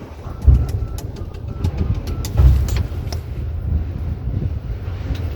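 Payphone keypad beeping faintly as a number is dialed, a string of short tones in the first two seconds or so, over a steady low rumble of street noise with a few heavy thumps.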